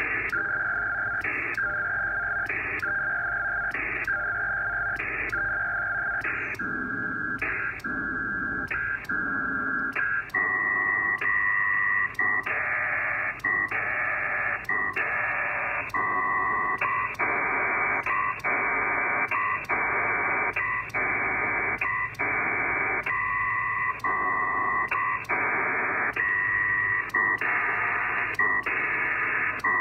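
Pactor digital data signal from a P4 Dragon modem, heard through an HF receiver: rhythmic bursts of data tones with short gaps between them, about one burst every 1.25 seconds. About ten seconds in the bursts become wider and denser, as the link moves on to sending the message data.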